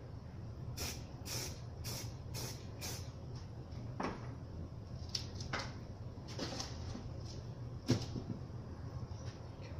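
Short hissing bursts from a spray paint can, five in quick succession about a second in, then several more spaced out, over a steady low hum. A sharp knock near the end is the loudest sound.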